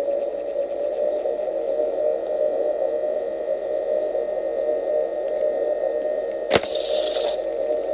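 Hasbro Neutrino Wand toy's electronic sound effect: a steady humming drone with a faint high tone over it. Near the end a sharp click is followed by a short hiss.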